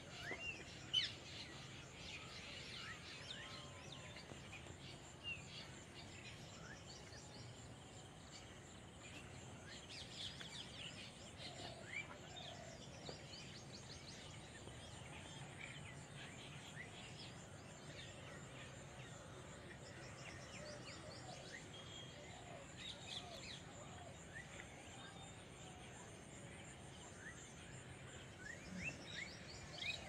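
Birds chirping in a rural outdoor scene: many short, faint chirps scattered throughout over a low steady background, with one brief knock about a second in.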